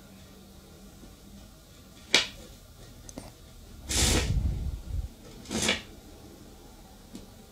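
A sharp click about two seconds in, then a magnet-capped battery rattling and scraping through a copper wire coil for about a second, followed by a shorter rattle.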